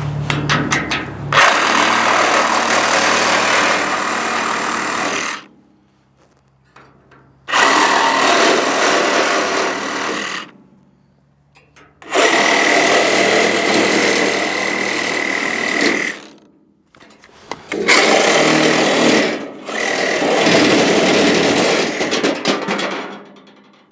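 DeWalt cordless reciprocating saw cutting through the steel tube of an IBC tote's cage, run in several bursts of a few seconds each with short pauses between.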